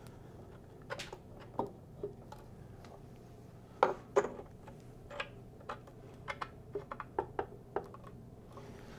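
Spring covers being pushed by hand into their holes on a Michell Orbe turntable's chassis: a few light knocks and clicks, two louder ones about four seconds in, then a quick run of small clicks.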